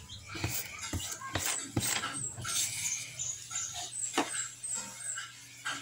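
A dog barking several times in the background.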